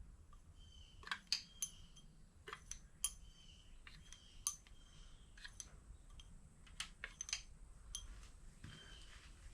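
Small metal engine parts from a 6.0 L LQ4 V8 teardown being handled and set down: irregular light clicks and clinks, some with a short metallic ring.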